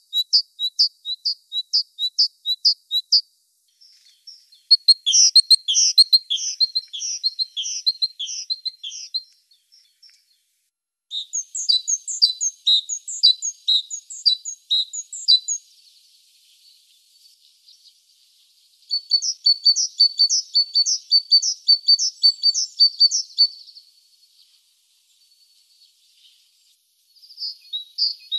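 Great tit singing: several bouts of quickly repeated high notes, each bout lasting a few seconds, with short pauses between.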